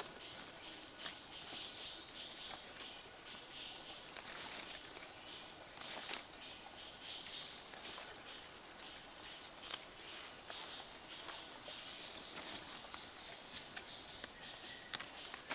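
A steady insect chorus, with occasional short snaps and rustles of leaves and stems as plants are picked by hand in the undergrowth.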